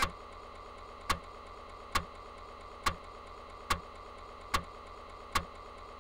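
Commodore Amiga floppy disk drive clicking, one sharp click a little under every second over a steady hiss from the drive.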